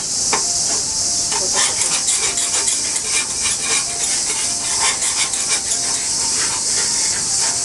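Steady high-pitched insect chorus of crickets, with irregular crackling of batter and noodles sizzling on a hot teppan griddle from about a second and a half in.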